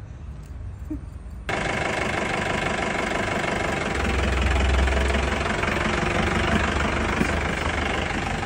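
Mahindra Bolero Invader's diesel engine running, suddenly loud and close from about a second and a half in, with a deeper, louder rumble around the middle.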